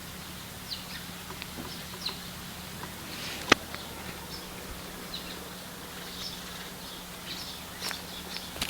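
Small birds chirping now and then in short, high calls over a steady low hum, with one sharp click about three and a half seconds in.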